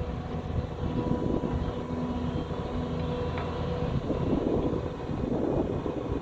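Hyundai SMART 215L excavator's diesel engine running under load while digging, with a steady whine that fades out about two-thirds of the way through.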